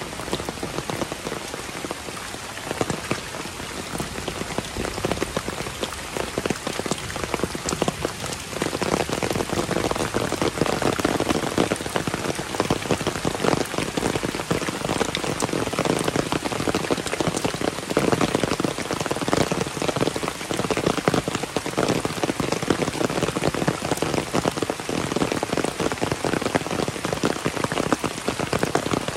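Heavy rain falling steadily, a dense patter of countless drops on surfaces that grows heavier about eight seconds in.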